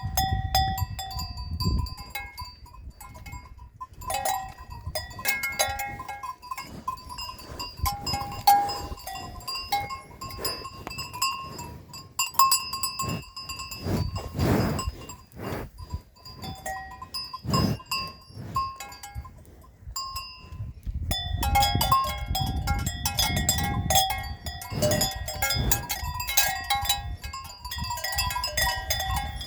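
Bells on grazing livestock clanking and tinkling irregularly, many small strikes at a few fixed pitches, busier again in the last third.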